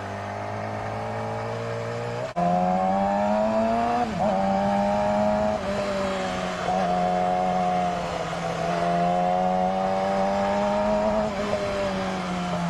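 Yamaha R6 inline-four engine under way, heard from the rider's seat. The revs climb and drop back about four times, as at each upshift. A little over two seconds in, the sound jumps suddenly louder.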